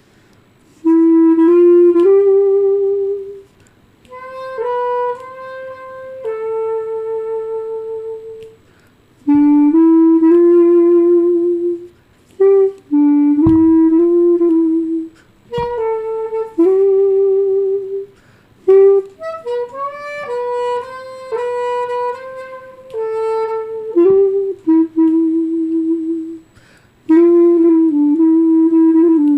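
Solo clarinet playing a slow melody in short phrases, some held notes wavering with vibrato, with brief pauses between phrases.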